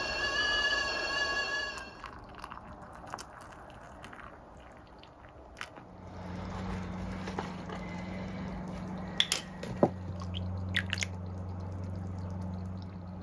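A stovetop kettle's whistle cuts off about two seconds in. Small clinks and liquid handling follow as tea is made in a ceramic mug, with a few sharp spoon-on-mug clinks near the end and a steady low hum from about halfway.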